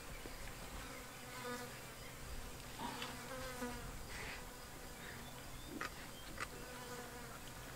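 Faint buzzing of flies, coming and going in several short passes, with two brief clicks about six seconds in.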